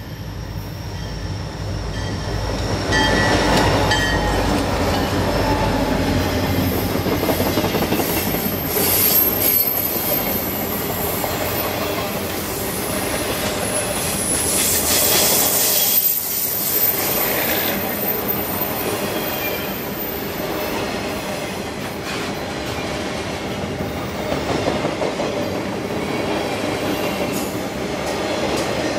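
Two EMD diesel locomotives, a GP40-2 and an SD40-2, run past with a heavy low engine rumble in the first several seconds. A long string of flatcars loaded with track-maintenance machines then rolls by, wheels clattering, with high-pitched wheel squeal in bouts around the middle.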